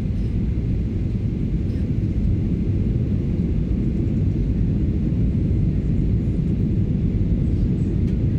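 Steady cabin noise inside a Boeing 737-800: a low, even rumble of its CFM56 turbofan engines and the airflow over the fuselage, heard on approach with the flaps extended.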